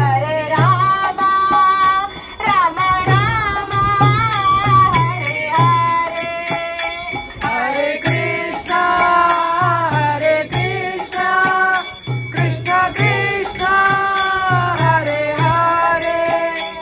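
Devotional kirtan: a singing voice chanting a melody, accompanied by ringing hand cymbals and a steady drum beat.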